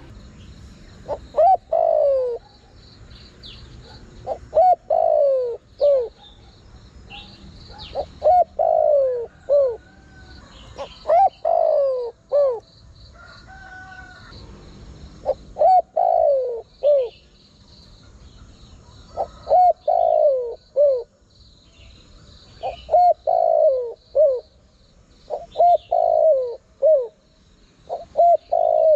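Spotted dove cooing: a phrase of three or four pitched coos, each rising then falling, repeated about every three seconds. Faint high chirps of small birds sound behind it. This is a decoy dove's call, of the kind played to lure wild doves.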